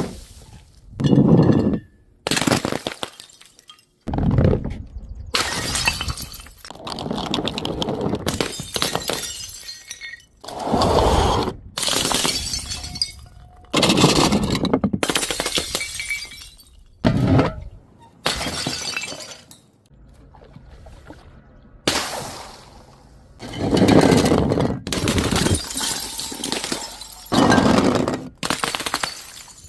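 Glass bottles shattering one after another, more than a dozen crashes in quick succession, each starting sharply and ending in a spray of glass fragments.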